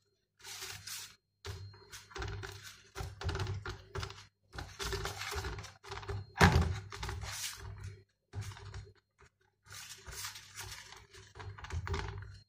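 Hands stretching and pressing dough on a metal tray: irregular soft thuds and rubbing, with the loudest knock about six and a half seconds in.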